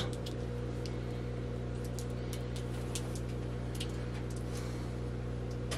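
Maytag top-load washer with a direct-drive impeller running at the start of its wash cycle: a steady low electrical hum from the motor with a few faint light ticks.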